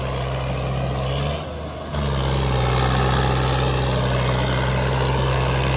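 Diesel tractor engine running steadily, with a brief break about one and a half seconds in, after which it comes back slightly louder.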